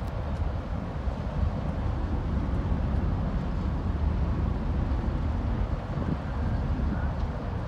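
Steady low rumble of wind buffeting the microphone, mixed with the dull drone of the large patrol vessel's machinery as it berths.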